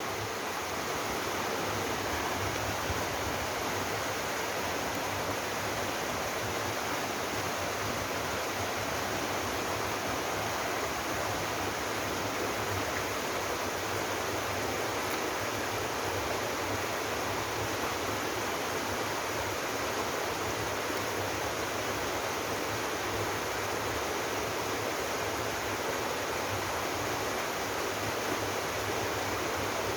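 A mountain waterfall and its stream rushing steadily, an even wash of falling and flowing water with no change.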